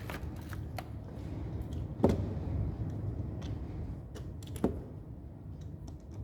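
3/8-inch drive sockets being handled and clicked onto toolbox socket rails: scattered sharp clicks and knocks, the loudest about two seconds in.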